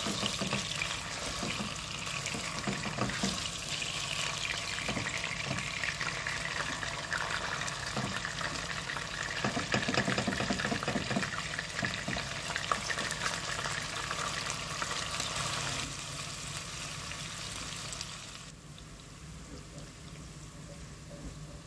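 Lean minced beef sizzling and crackling in hot oil and its own released juices in a pot, stirred with a plastic spoon. The sizzle eases and gets quieter in the last few seconds.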